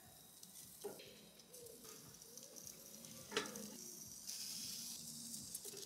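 Food sizzling faintly on a small charcoal grill, with two sharp clicks of metal tongs against the grate as vegetables and bread are laid on, the second about three seconds in the louder; the sizzle grows louder near the end.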